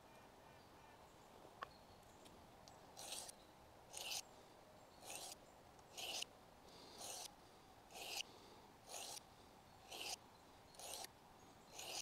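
Knife blade stroked across a small diamond sharpening plate: faint rasping strokes about once a second, about ten in all, starting some three seconds in, with a single click before them.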